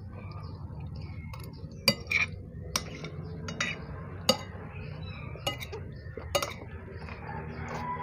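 Eating utensils clinking and scraping against a bowl, about seven sharp clinks spread out, over a steady low hum.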